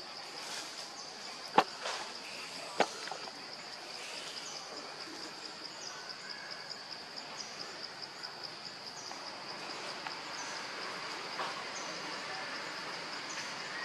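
Insects trilling steadily in a high, fast-pulsing tone, with a short higher chirp repeating about once a second. Two sharp snaps stand out about one and a half and three seconds in.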